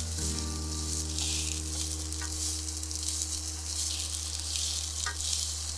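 Green pepper and komatsuna stems sizzling in hot oil in a frying pan while being stir-fried with chopsticks, with a couple of light clicks of the chopsticks against the pan.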